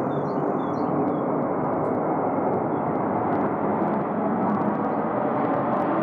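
Airbus A350-941 jet airliner's Rolls-Royce Trent XWB engines giving a steady rumble as it rolls out on the runway just after touchdown. A few faint bird chirps fade out about a second in.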